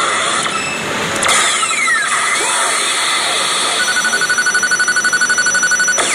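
Pachinko machine's electronic jackpot effects: a falling electronic sweep about a second in, then a fast-pulsing beep, about ten pulses a second, from about four seconds in, over steady noise.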